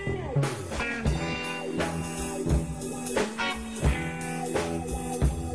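Rock music track of guitar playing over a drum kit.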